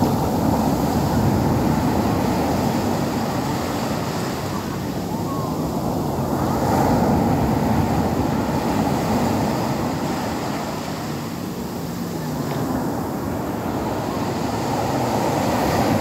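Rough sea surf breaking on a beach: a continuous wash of waves, swelling louder as each breaker crashes (about a second in, around the middle and again at the end) and easing between them.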